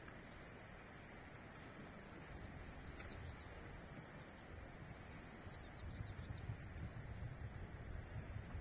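Faint rural outdoor ambience: small birds chirping in short high notes every second or so, over a thin steady high tone and a low rumble that grows a little louder after about six seconds.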